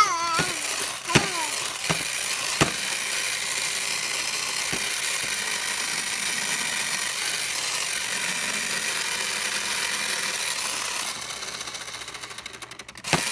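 Toy miter saw running with a steady buzzing whirr for several seconds, then winding down with quickening ticks and stopping near the end. A few clicks near the start as the saw is worked.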